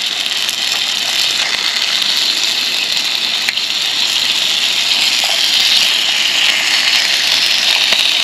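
Bacon and sliced sausage sizzling in a frying pan on a camping gas stove, the sizzle growing stronger over the first few seconds and holding steady, with a couple of light clicks.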